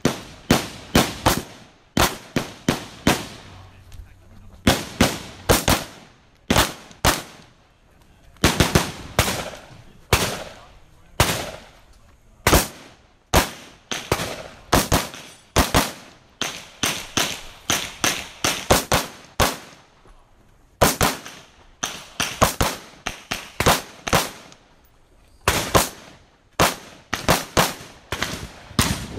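Rapid gunfire from a competition shooter, fired in fast strings of about two to six shots with short pauses between strings.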